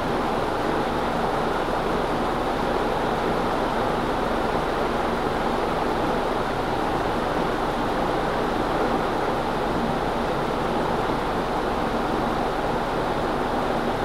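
Leslie Locke (Evergo) Scottsdale 48-inch ceiling fan running at a constant speed: an even rush of air from the spinning blades, with a faint low hum underneath.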